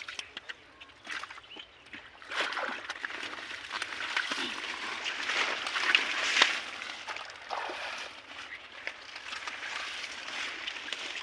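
Shallow muddy water sloshing and splashing as hands work through it, with scattered small knocks. It builds about two seconds in, is loudest around the middle, then eases.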